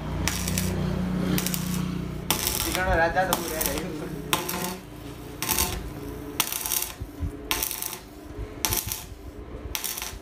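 Stick-welding arc crackling in short bursts, about one a second, as a steel silencer pipe is stitch-welded. A steady low hum runs under the first half and stops about five seconds in.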